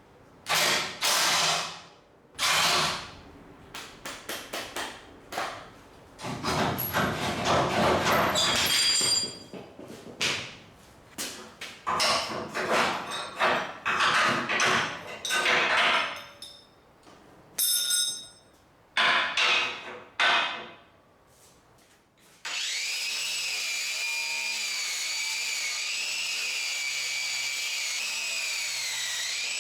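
Power tool run in repeated short bursts for about twenty seconds, with a few metallic clinks among them, then a high-pitched power tool whining steadily for the last seven seconds.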